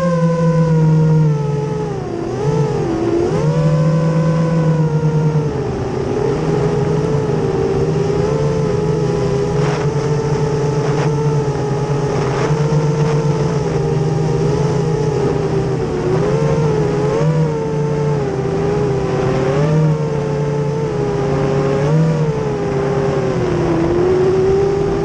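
Racing quadcopter's four Racerstar BR2205 2300KV brushless motors and propellers whining in flight. The pitch rises and dips with the throttle, with a sharp dip about two to three seconds in.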